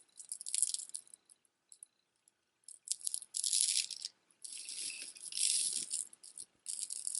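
Strands of glass beads clicking and rattling against each other as a long multi-strand bead necklace is handled and stretched out, in several bursts with a pause of over a second after the first.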